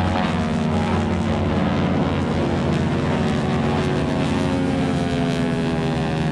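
Engines of a four-plane formation of propeller aerobatic aircraft droning overhead, the engine pitch slowly sliding as the formation flies past.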